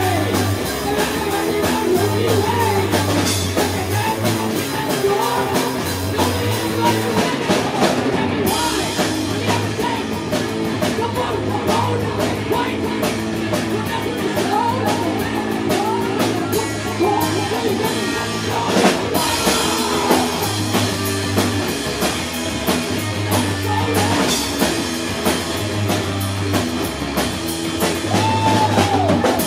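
Live rock band playing: electric guitars and a drum kit with a singing voice over them.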